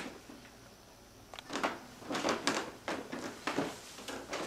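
Handling noise from a handheld camera being moved about: after a quiet second or so, an irregular run of about a dozen short knocks and rubs.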